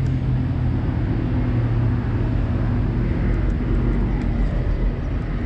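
Steady motor-vehicle noise from the nearby road: a constant low engine hum that holds the same pitch throughout.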